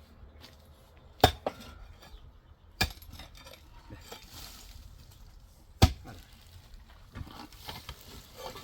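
Hard objects knocking and clinking: three loud, sharp knocks about a second, three seconds and six seconds in, with lighter clicks and clinks between them.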